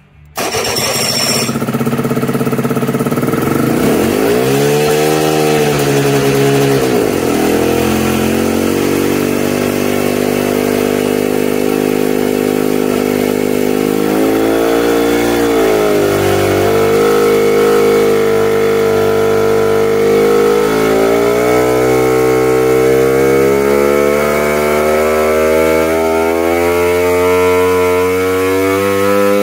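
Rebuilt Kawasaki Tecate 4 long-rod 330 big-bore two-stroke single running on an engine dyno, breathing through an expansion pipe and silencer. It cuts in suddenly, rises and falls in revs a few times, and then over the last third is held wide open against the dyno's load, its pitch climbing steadily from about 3,000 rpm: a low-rpm break-in pull.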